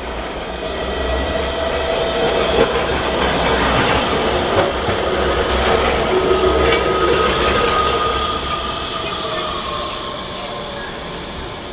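Bombardier Incentro street tram passing close by on street track. Its running noise swells as it nears and fades as it moves off, with a thin steady whine that slides down in pitch as it pulls away.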